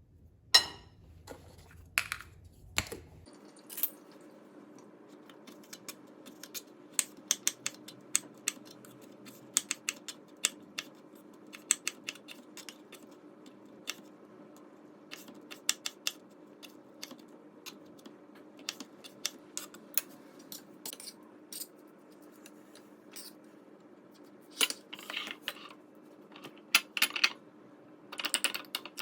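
Irregular clinks and taps of utensils and dishes during food preparation, over a steady low hum.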